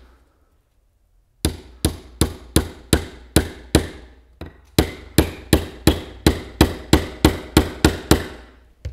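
Hammer driving a nail through a wooden rail into the edge of a plywood hive floor: a run of even blows about three a second starting about a second and a half in, a brief break near the middle, then a longer run at the same steady pace.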